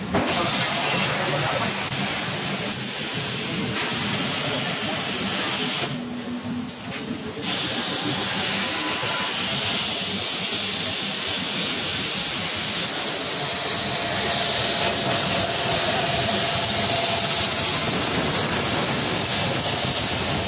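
CNC plasma cutting torch hissing steadily as it cuts circular blanks out of an iron sheet, dropping away briefly about six seconds in before it carries on.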